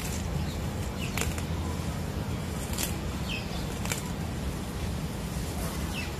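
Steady outdoor background noise with a low rumble, a few faint clicks and some short high chirps.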